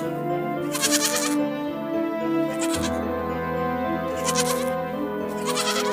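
Goats bleating, several short calls about a second or more apart, over background music with held chords.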